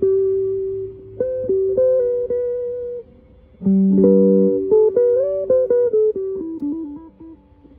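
Guitar played as single plucked notes, most of them held and some slid up or down in pitch. After a short pause a fuller chord with a low note sounds, followed by quicker notes that step downward near the end.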